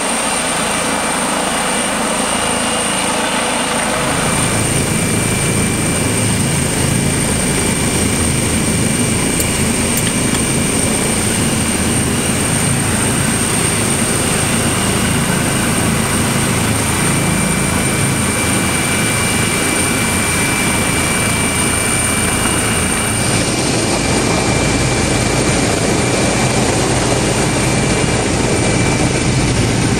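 Eurocopter EC135 helicopter running steadily, its rotor and turbine noise carrying a high whine. The low rumble grows heavier about four seconds in, and the sound changes again about three quarters of the way through, where it is heard from inside the cabin.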